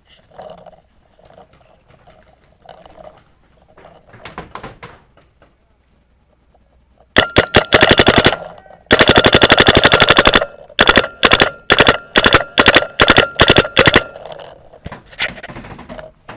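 Paintball marker firing close to the microphone in rapid fire. A quick burst about seven seconds in is followed by a longer unbroken string of about a dozen shots a second, then a run of single shots about three or four a second until near the end.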